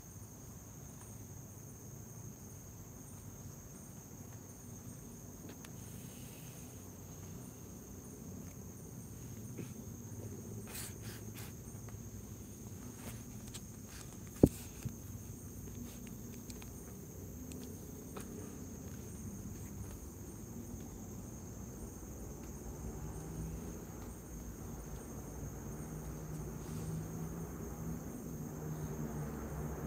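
Night chorus of crickets: a steady high-pitched trill over a low rumble that grows louder near the end. One sharp click, the loudest sound, comes about halfway through.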